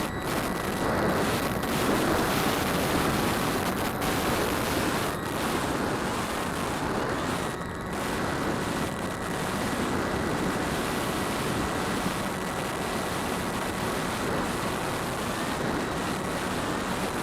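DJI Phantom quadcopter's motors and propellers heard from a camera on board: a steady rushing noise with a faint constant whine, mixed with wind over the microphone.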